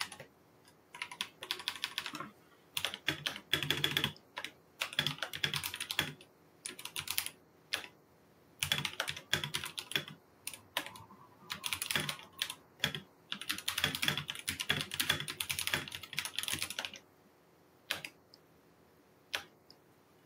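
Typing on a computer keyboard in quick runs of keystrokes with short pauses between them. The typing stops about three seconds before the end, and then come two single key taps.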